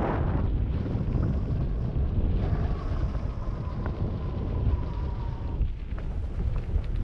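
Wind buffeting the microphone of a mountain bike rider moving along a forest trail, over a dense low rumble from the ride, with scattered sharp clicks. A faint steady high squeal runs for about three seconds in the middle.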